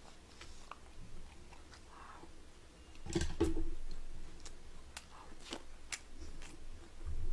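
Close-miked chewing of a mouthful of food, with scattered light clicks and a louder knock about three seconds in.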